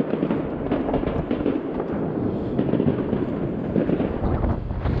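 Fireworks and firecrackers going off from all around without pause: countless overlapping bangs and crackling pops.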